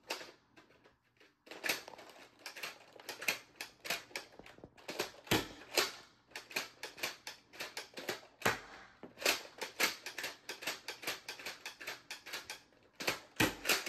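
Dart Zone Max Tomcat foam dart blaster being slam-fired: a quick run of sharp clicks and snaps, about three or four a second, with a couple of short pauses, starting about a second and a half in. These are the last darts in its 50-round drum.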